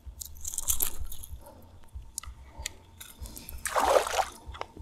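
A fishing cast, with a hissing rush of line and reel in the first second, then a loud splash at the water surface near the end, about four seconds in.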